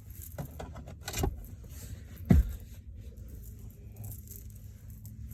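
Handling noise: a few light knocks and rustles, then one loud, low thump a little over two seconds in.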